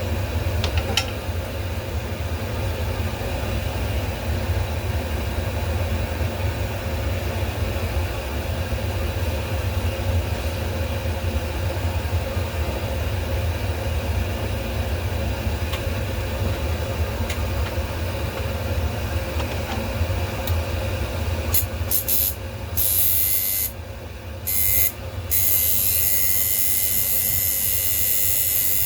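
A steady low machine hum. About two-thirds of the way through, a loud hiss starts, cuts in and out a few times, then runs on steadily.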